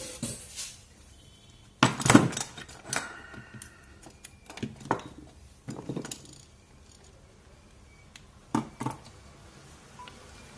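Handling clatter on a workbench: a phone and a USB cable picked up and set down, and the cable's plugs pushed into the power bank and the phone. It comes as a string of clicks and knocks, loudest about two seconds in.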